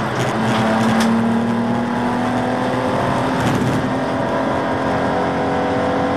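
BMW Z4 Coupe (E86) race car's straight-six engine pulling hard in one gear, its note rising slowly and steadily, heard from inside the stripped-out cabin over road and wind noise. A sharp click sounds about a second in.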